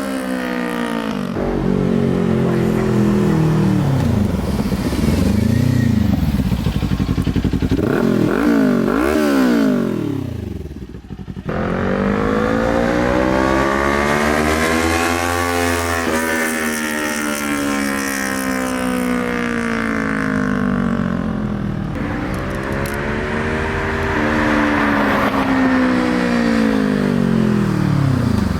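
Kawasaki Ninja 400 parallel-twin engine through an aftermarket exhaust, its pitch rising and falling in long sweeps as the throttle is opened and closed. There are a few quick throttle blips about a third of the way in.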